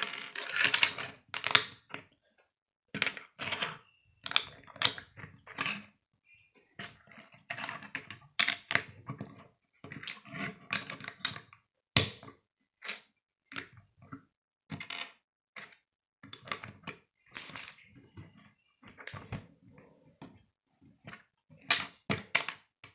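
Plastic Lego bricks clicking and clattering as they are handled and pressed together on a wooden table, in irregular runs of small sharp clicks, with a sharper knock about twelve seconds in.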